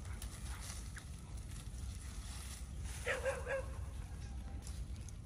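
A dog barking: a quick run of about four short yips about three seconds in, over a steady low rumble.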